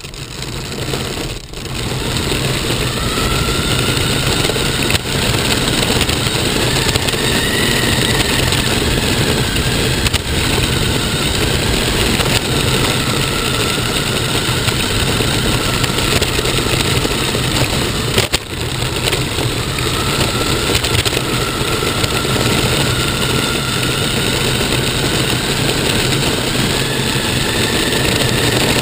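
An RC car driving across asphalt, heard from a camera mounted on its own body. Steady loud drivetrain and tyre noise, with a faint whine that rises and falls as the car speeds up and slows down.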